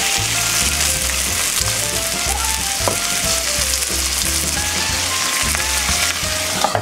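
Meat sizzling steadily in a hot frying pan as tomato sauce is spooned over it, with light background music. Near the end the hiss drops sharply with a short click as a glass lid is set on the pan.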